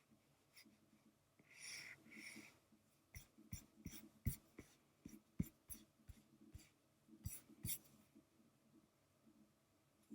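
Faint, irregular taps and light scratches of a stylus on a drawing tablet while lines are inked, with a soft hiss around two seconds in.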